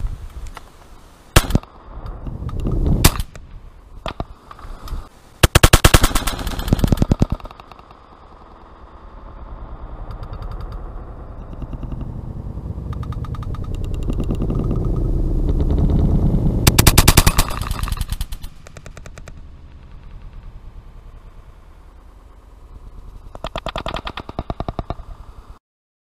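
Two sharp shotgun shots a second and a half apart, then several spells of rapid clattering and a slowly swelling rush as large flocks of pigeons pass overhead.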